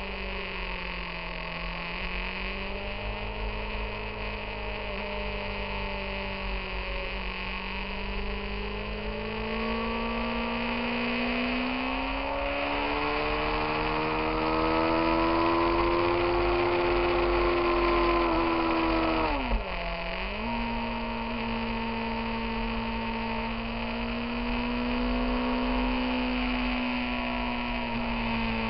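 Motorcycle engine heard from on board while riding, its note rising and falling with the throttle through the curves and climbing steadily as it accelerates through the middle. About 19 seconds in the note drops sharply and settles lower, as at a gear change, over a steady rumble of wind and road noise.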